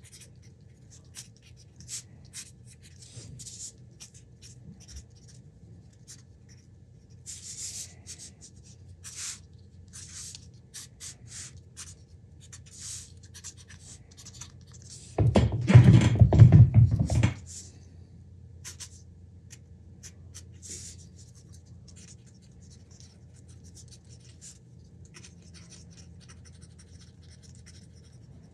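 Hand-work sounds at a workbench: light scratching, tapping and clicking as tools and parts are handled, over a steady low hum. A little past halfway comes one loud, rough burst lasting about two seconds.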